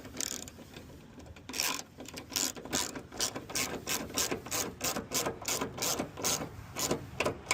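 Hand ratchet clicking in a steady run of about two to three clicks a second, starting about a second and a half in, as a fastener is driven home.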